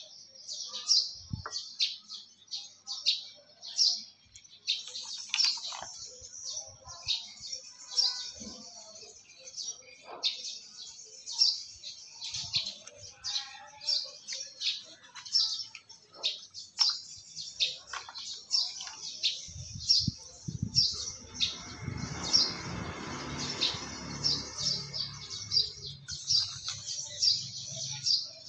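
Small birds chirping rapidly and continually, many short high calls. About two-thirds of the way through, a low rumble swells and fades over about six seconds.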